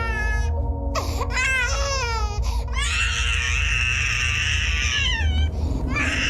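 Baby crying and screaming in a run of high, wavering wails, the longest and loudest about three seconds in, over a steady low hum.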